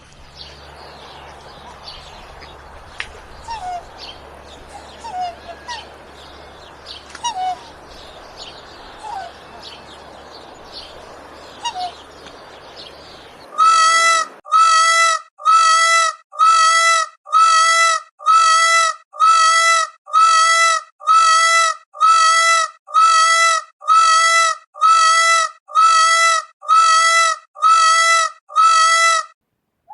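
Birds chirping faintly over a low steady hum for the first half. Then one loud, pitched bird call repeats about once a second, each one the same, to the end.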